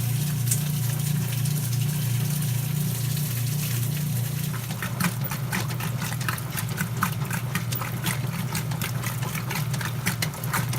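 1995 Kenmore 80 direct-drive washing machine running with water in the tub: a steady low motor hum, with the water splashing and sloshing in quick irregular bursts from about halfway in. The agitator is churning as it should after its agitator dogs and motor coupler were replaced.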